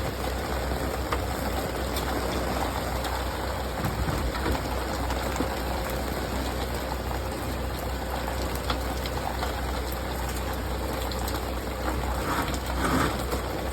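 Steady rain, with scattered drips and taps from water running off an awning, over a steady low hum.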